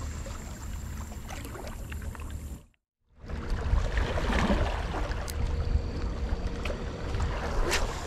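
Wind rumbling on the camera microphone, with water washing against the breakwater rocks and a few sharp clicks. The sound drops out for a moment about three seconds in.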